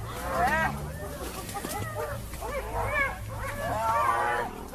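Repeated animal calls, several overlapping, each rising and falling in pitch, over a steady low hum.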